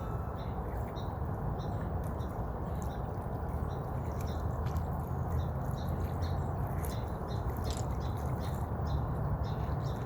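Small birds chirping in short, repeated notes over a steady low rumble.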